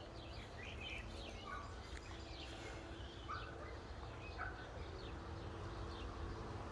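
Small birds chirping here and there in the background, short calls scattered throughout, over a faint steady low rumble of outdoor ambience.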